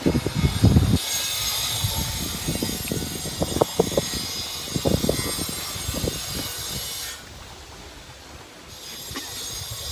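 Wind buffeting the microphone in uneven gusts, over a steady high hiss of sea and wind that drops away for about a second and a half near the end.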